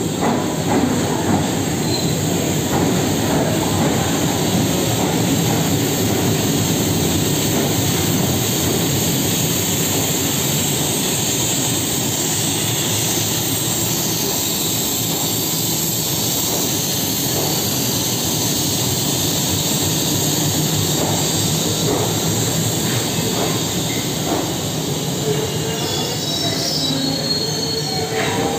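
Twin WDM3A ALCO diesel-electric locomotives rolling slowly past as the train arrives, their engines giving a steady, even drone, followed by the coaches rolling by. Thin high wheel squeal comes in near the end.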